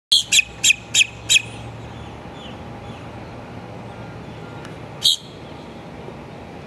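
Grackle giving a quick run of five short, sharp, harsh calls in about a second and a half, then one more about five seconds in, over a steady low background hum.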